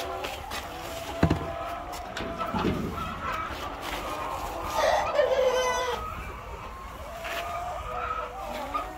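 Laying hens clucking and calling, many overlapping voices. A sharp knock comes about a second in, and one louder call falling in pitch comes about five seconds in.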